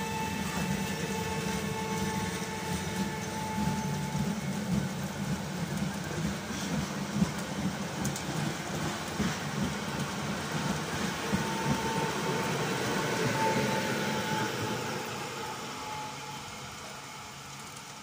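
Electric multiple unit running past on the rails: a steady rumble of wheels with an electric hum over it, over the hiss of rain. It grows louder toward the middle, then fades in the last few seconds as the train draws away.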